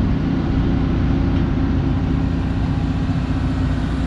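Volvo FMX truck's diesel engine running steadily, a constant low hum.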